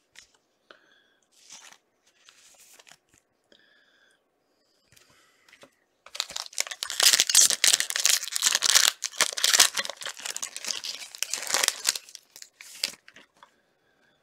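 A trading card pack wrapper torn open and crinkled by hand: a loud, dense tearing and crinkling that starts about six seconds in and lasts about six seconds, after some light rustling of cards being handled.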